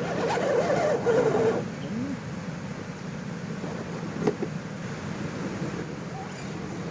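A small-scale RC car's electric motor and drivetrain running with a steady low hum, louder and wavering in the first second and a half. A single sharp click comes about four seconds in.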